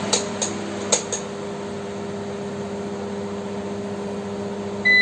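Numeric 600EX UPS and the fan it powers running with a steady hum, with a few clicks in the first second. A short high beep from the UPS sounds right at the end.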